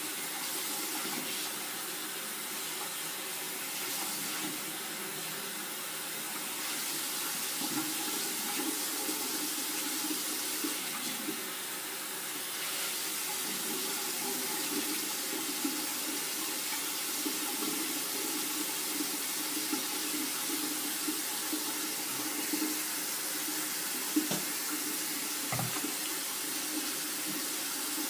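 Tap water running steadily into a sink while hair is washed under it, with a few small knocks near the end.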